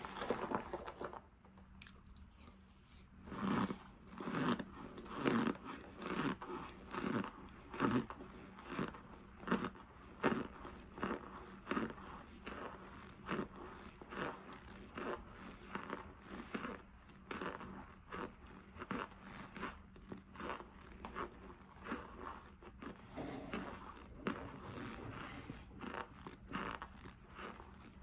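Close-up chewing of lumps of cornstarch: a run of crisp crunches, about one a second.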